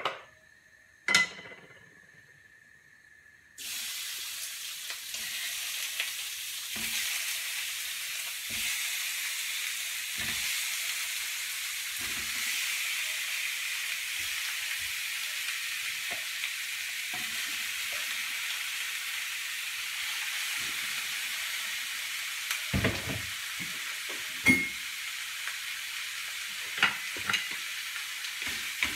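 Pork ribs sizzling in hot oil in a frying pan, the sizzle starting suddenly a few seconds in as the meat goes into the pan. Short knocks of meat and a wooden spatula against the pan come now and then over the steady sizzle.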